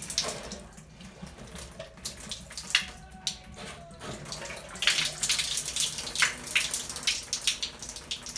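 Water splashing out of a Delta 17 Series shower valve body as the cartridge is worked loose and pulled; it is the water left in the shut-off supply lines draining out. The flow grows louder and splashier about five seconds in.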